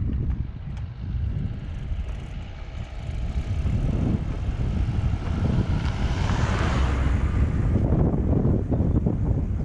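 Wind rushing over a bike-mounted action camera's microphone, with a van driving past, loudest about six to seven seconds in and then fading.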